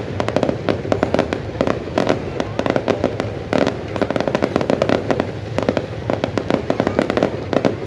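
Fireworks display: a dense, continuous barrage of rapid bangs and crackles, many per second, with no pause.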